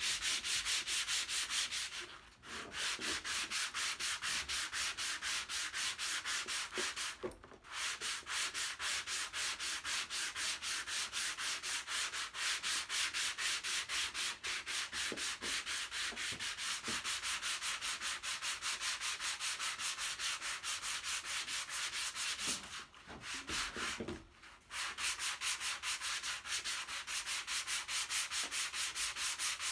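Sandpaper on a hand sanding block rubbing over cured body filler on a truck dash pad, in quick, even back-and-forth strokes. It stops briefly a few times: about two seconds in, around seven seconds, and twice in the last quarter.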